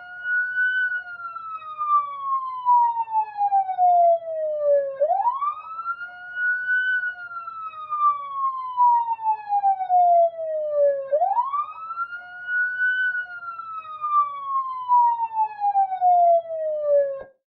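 Police siren wailing in slow cycles, each a quick rise in pitch followed by a long falling glide, about every six seconds. It cuts off abruptly near the end.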